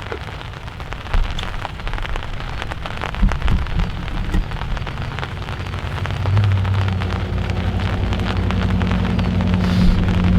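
Rain falling on a towel-covered microphone as a dense patter of close drop hits. About six seconds in, a steady low engine hum comes in and slowly grows louder.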